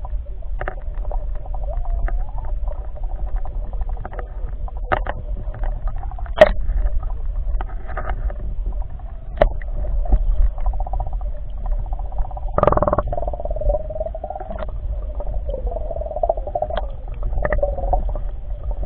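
Muffled underwater sound picked up by a submerged camera: a steady low rumble of moving water with a wavering hum and scattered clicks and knocks. The sharpest knock comes about six and a half seconds in, and a longer thump comes about twelve and a half seconds in.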